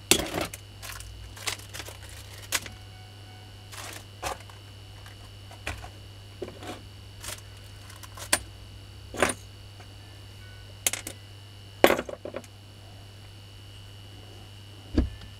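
Irregular light clicks and knocks of a washing-machine motor's wiring and parts being handled by hand, about a dozen in all, over a steady low hum.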